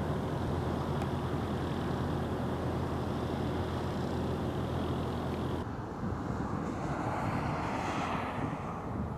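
Highway traffic heard from the roadside, a steady low rumble of vehicles on the road. A car approaches and grows louder in the last few seconds.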